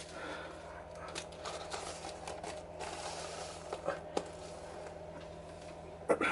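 Scrunched newspaper crackling and rustling in short, scattered crinkles as a model hill is pressed and shaped by hand, with a louder double crinkle near the end, over a faint steady hum.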